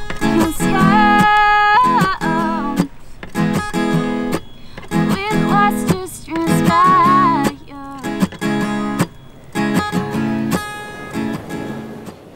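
Music: an acoustic guitar strummed in chords, with a higher melody line over it.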